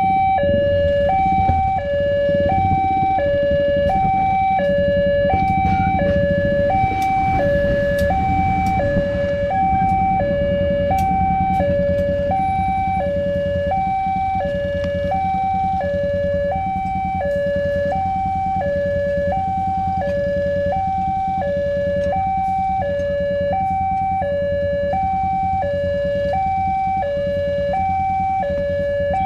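Railway level-crossing warning alarm sounding while the barrier is down: an electronic two-tone signal stepping evenly between a higher and a lower note without a break, over a low rumble.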